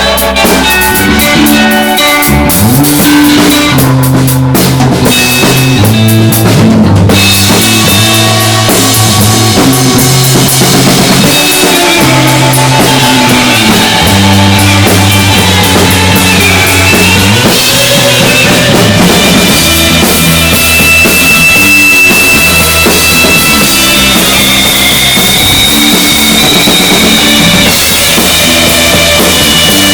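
Live rock band jamming loosely: drum kit and bass guitar keeping a rhythm under noisy, distorted electric guitar, with a held high tone about two-thirds of the way through.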